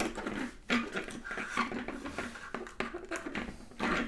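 Printed card model-building pieces being slotted and pressed together by hand: a run of light scrapes and small clicks of card against card.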